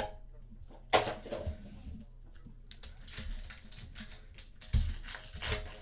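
Trading cards and card packs being handled on a table: scattered light taps, slides and rustles, with sharper clicks about a second in and again near the end.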